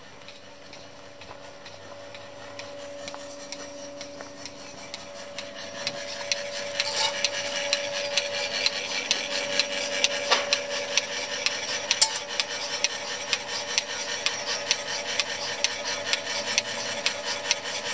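Portable bucket milking machine running: a steady hum with dense, rapid clicking and hissing that grows louder about six seconds in.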